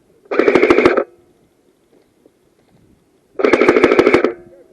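Airsoft electric gun firing two short full-auto bursts of rapid clicks, each under a second long and about three seconds apart.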